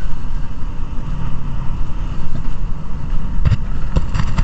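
Mountain coaster sled rolling down its tubular steel track: a steady, loud rumble of the wheels running on the rails. Near the end come a few sharp knocks.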